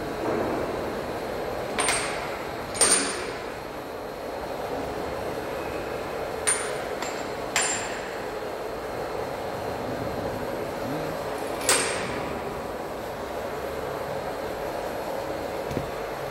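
Large CNC faceplate lathe running, its 4000 mm faceplate turning with a steady hum. Sharp metallic clanks with a ringing tail come every few seconds, twice as pairs about a second apart.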